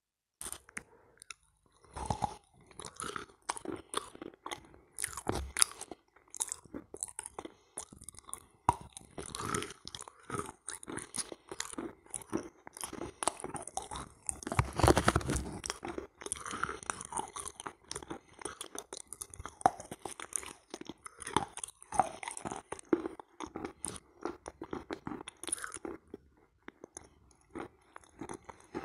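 Close-miked chewing and crunching of soft edible chalk-and-clay halva coated in wet kaolin clay cream: a steady run of soft crunches and sticky chewing, loudest in a burst about halfway through.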